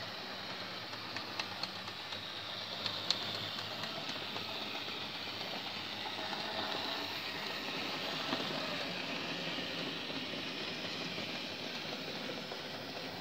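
Hornby model train running on the layout's track: a steady whirr of motor and wheels on the rails. A few light clicks come in the first seconds, the sharpest about three seconds in.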